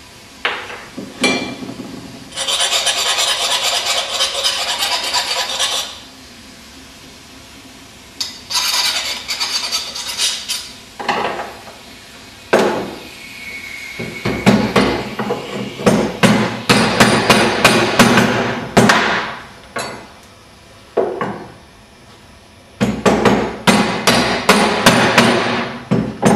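A hammer tapping neoprene bushes into the tubes of steel clutch and brake pedals and their mounting bracket, in runs of quick light taps. Stretches of steady rasping a couple of seconds in and again near the middle come before the tapping.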